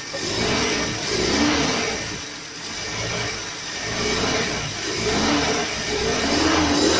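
Engine of a Mitsubishi Colt T120 running after being started, revved up and down several times with the pitch rising and falling.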